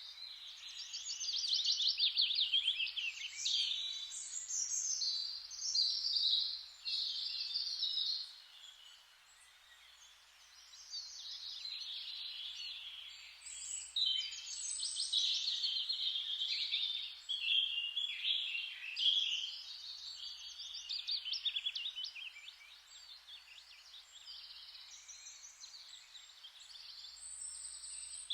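Forest dawn-chorus-style birdsong: several birds chirping and singing fast trills at once, with a quieter lull about a third of the way in before the singing picks up again.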